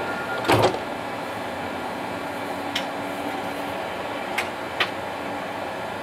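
Alstom Citadis Dualis tram-train standing at a platform, its ventilation and auxiliary equipment giving a steady hum. A thump about half a second in and three short sharp clicks later on.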